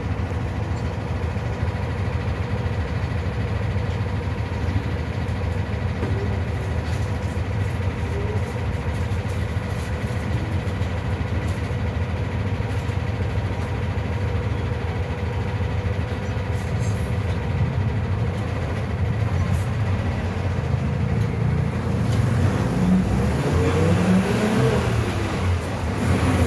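Modasa Titán Urbano bus's MWM TCA 6.10 six-cylinder engine, converted to run on natural gas (CNG), running steadily. In the last few seconds it revs up and down, its pitch rising and falling.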